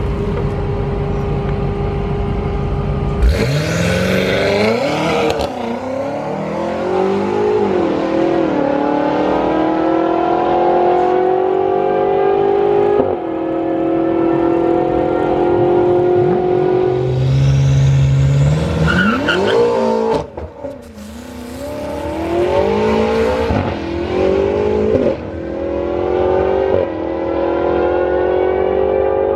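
High-powered car engine accelerating hard, its pitch climbing and dropping back at each upshift. There is a brief drop in level about 20 seconds in, then another run climbing through the gears.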